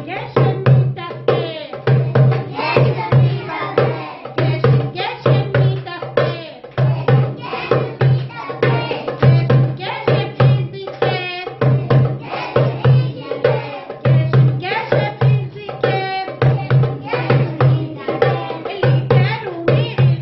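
Woman singing a song while beating a darbuka (goblet drum) in a steady rhythm, with repeated deep low strokes and sharp slaps.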